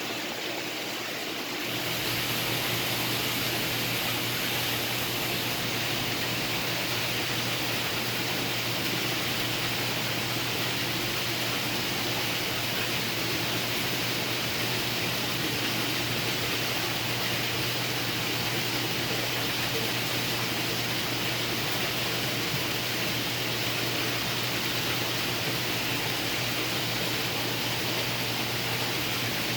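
Steady hiss of moving water from saltwater aquarium pumps and filtration, with a low steady hum that comes in about two seconds in.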